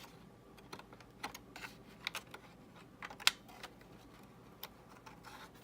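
Irregular small clicks and taps as fingers work a laptop's RAM slot, spreading the retaining clips and handling a memory module to release it.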